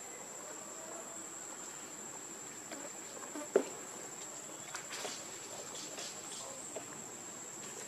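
Insects keep up a steady high-pitched buzz. A single sharp click comes about three and a half seconds in, and a few fainter ticks follow.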